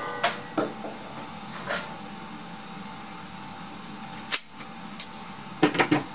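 Metallic clicks and knocks of a CZ75 SP01 Shadow semi-automatic pistol being handled and set down on a metal-topped shooting bench: a few light clicks in the first two seconds, then a quick run of sharper clicks near the end.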